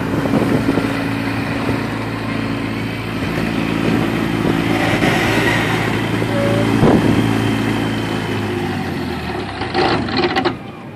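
Honda-based Viking aircraft engine turning the propeller at low power while the light aircraft taxis, a steady drone; it cuts off about ten seconds in, after a few knocks, and the level drops sharply.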